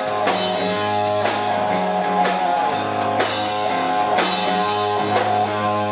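Rock band playing an instrumental stretch of a song: guitar chords and a steady bass line over drums, with a heavy drum hit about once a second.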